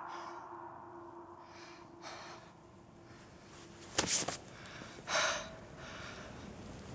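A man breathing hard, with two short sharp breaths about four and five seconds in.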